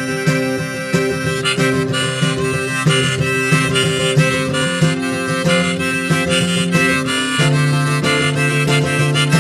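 Harmonica played from a neck rack, a run of short held notes, over strummed acoustic guitar chords; the guitar changes chord about seven and a half seconds in.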